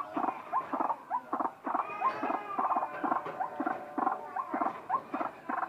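White-breasted waterhen calling: a rapid, rhythmic run of short repeated notes, about three a second, each with a quick upward slide.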